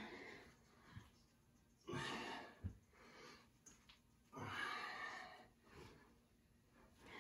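Heavy exhalations from people working out with kettlebells: three breaths out, about two seconds apart.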